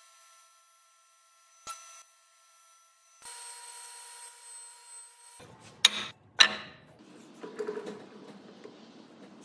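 Spindle shaper with a stacked groove cutter running with a steady whine; a little past halfway, two loud sharp hits about half a second apart, then rougher rasping noise as the cutter cuts into the wooden board.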